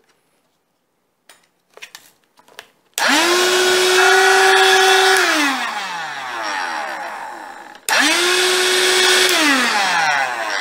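A SilverCrest cordless handheld vacuum's motor, running on a newly fitted lithium battery pack, is switched on after a few light clicks. It spins up to a steady whine, runs about two seconds, then winds down with falling pitch. It is switched on again and winds down again near the end. The repaired vacuum is working.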